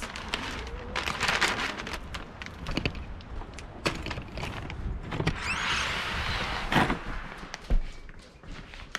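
Footsteps and knocks as a person walks over a wooden deck and through a house door. The door is handled with latch clicks and shuts with a thud near the end.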